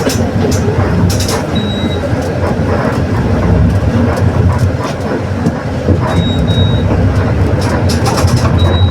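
Mercedes-Benz OF 1721 BlueTec 6 city bus running on the road: a steady low diesel rumble with body rattles and clicks, and a growling differential. A brief high steady tone sounds three times.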